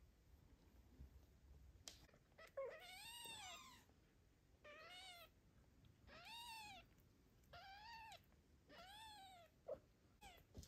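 Newborn kitten mewing: five high, thin calls, each rising and falling in pitch, spaced about a second and a half apart.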